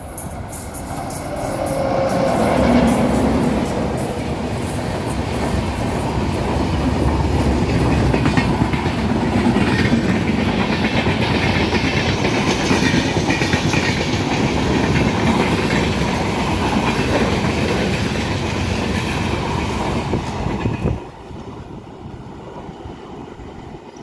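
Express passenger train passing at speed, its wheels clattering over the rail joints under a heavy rumble. The sound builds over the first few seconds, holds steady as the coaches go by, and drops away suddenly about 21 seconds in.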